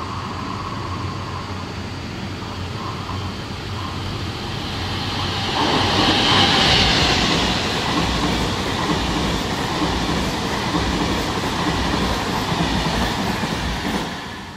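ÖBB Railjet passenger train, hauled by a Taurus electric locomotive, running past along the platform with its wheels rolling and clacking over the rails. The noise grows as it approaches, is loudest about six to seven seconds in with a bright hiss as the train draws level, then carries on as a steady rumble as the coaches pass.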